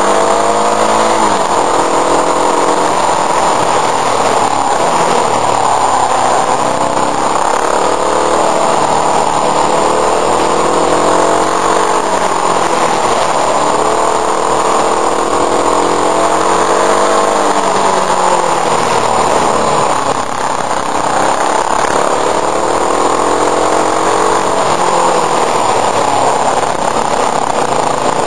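Motorcycle engine running under way on a winding climb, its revs rising and dropping again and again through gear changes and bends, over a steady rushing noise at the mirror-mounted microphone.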